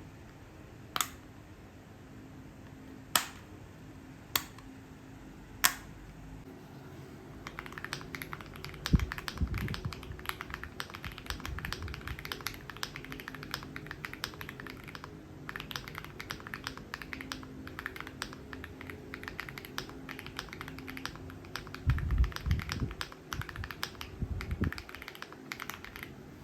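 AULA F99 mechanical keyboard keys being pressed: four single key clicks a couple of seconds apart, then continuous fast typing from about seven seconds in. A few heavier, deeper key strikes come around nine seconds and again near the end.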